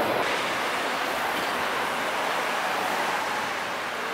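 Steady, even rushing background noise of a large railway station hall, with no distinct events.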